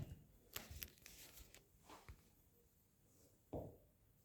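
Near silence with a few faint clicks and rustles of handling, and a soft thump near the end.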